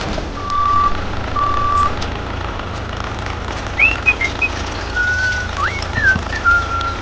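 A vehicle reversing alarm sounds two even, steady beeps of about half a second each, then stops. A few seconds later come several short whistled chirps, some sliding up in pitch, over a steady low hum.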